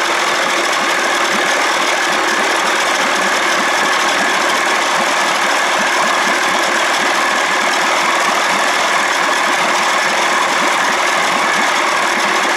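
1979 Evinrude 55 hp two-cylinder two-stroke outboard running steadily with its cowling off, warming up while its thermostat is tested.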